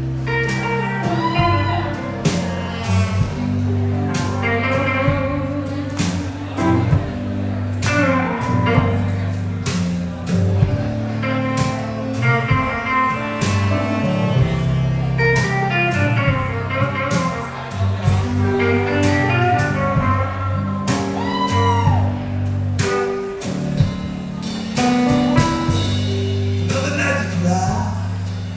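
Live blues band playing: electric archtop guitar, upright bass and saxophone, with a walking bass line under the guitar and horn.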